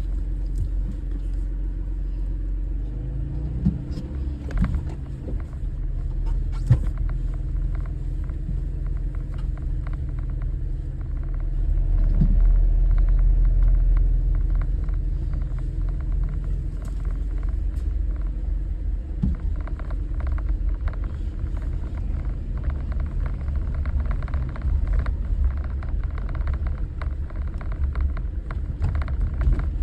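Jeep engine running as it drives slowly over a rough road, with scattered knocks and rattles from the bumps. It grows louder for a couple of seconds about twelve seconds in.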